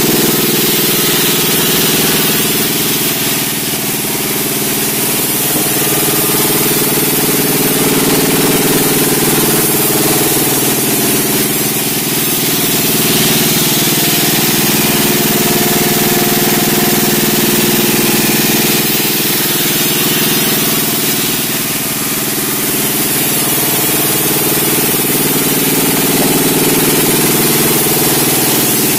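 Sawmill running: its engine drones steadily under the hiss of the saw cutting through a large log.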